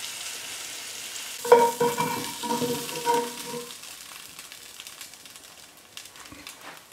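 Flour-coated beef cubes sizzling in hot olive oil in a casserole pan. About a second and a half in, a metal slotted spoon clatters against the pan with a ringing clang lasting a couple of seconds. Fainter scrapes and clicks follow as the sizzling dies away.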